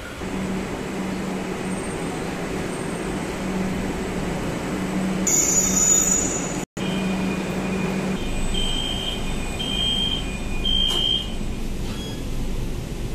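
Kolkata Metro train standing at a platform, humming steadily, with a brief hiss about halfway through. Then, inside the car, three short high beeps of the door warning sound over the low rumble of the train.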